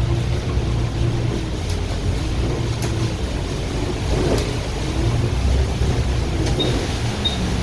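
Bus engine and drivetrain running with a steady low rumble, heard from inside the bus. Near the end a short, high tick starts repeating about one and a half times a second.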